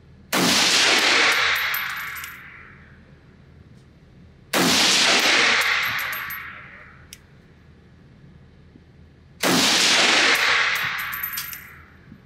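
Three single shots from a Nemo Arms Battle Light Rifle, an AR-15-style rifle in 6mm ARC, spaced about four to five seconds apart. Each report rings out with an echo of about two seconds in an indoor range lane and is followed by small metallic clinks of ejected brass cases landing.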